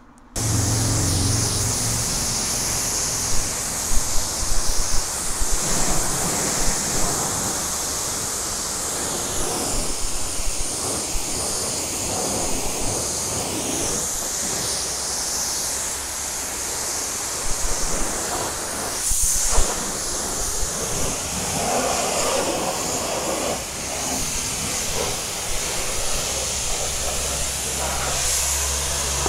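Self-serve car wash spray, the foam brush and high-pressure wand, jetting water onto a van's metal body: a loud, steady hiss that starts suddenly just after the beginning, with a low pump hum underneath and a few brief louder spatters.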